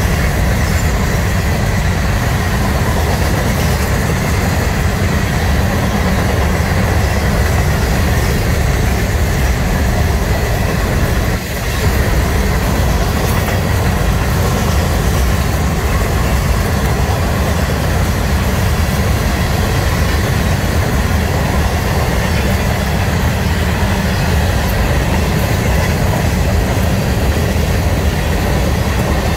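Florida East Coast Railway freight train's hopper cars rolling past on steel wheels and rails: a loud, steady rumble, with a brief dip about eleven seconds in.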